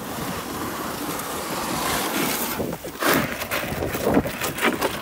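Polyethylene canoe hull scraping and grinding over shore gravel as the canoe is pushed off into the water, growing louder and more uneven from about three seconds in.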